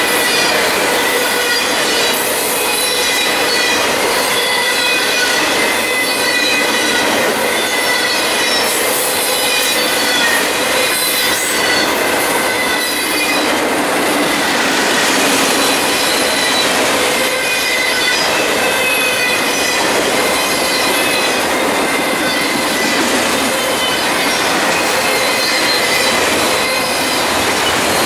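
Freight train of autorack cars rolling past close by: a steady, loud rush of steel wheels on rail, with high, ringing wheel squeal held throughout.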